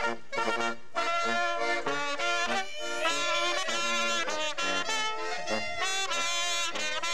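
A small brass band plays a lively tune while marching. Clarinet and trumpet carry the melody, and a large brass horn and an accordion fill in the harmony and bass.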